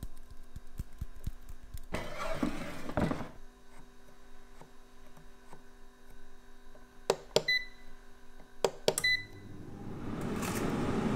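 Air fryer being set: sharp clicks from its control dial and short electronic beeps, then its fan starting up with a steady rushing noise about ten seconds in. There is a brief noise about two seconds in.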